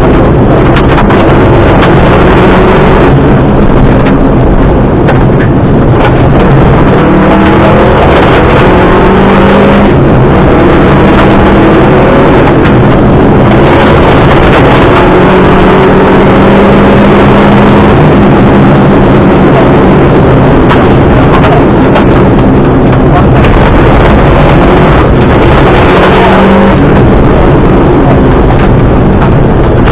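Subaru Impreza rally car's flat-four engine running hard and loud at stage pace, its revs climbing and dropping back again and again through gear changes.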